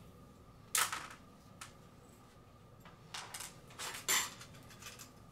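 Small metal light-fixture parts clinking and rattling as they are handled: a sharp clink about a second in, then a cluster of clinks around three to four seconds in.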